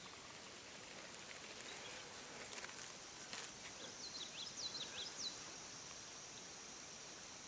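A small songbird gives a quick run of short, high, sweeping chirps about four seconds in, lasting just over a second. Under it runs a steady high-pitched hiss, with a few faint clicks shortly before the chirps.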